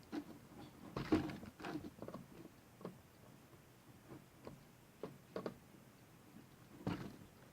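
Irregular light clicks and small knocks of hands working inside an opened laptop, at the internal CMOS battery and its cable connector on the motherboard, with a few sharper knocks about a second in and near the end.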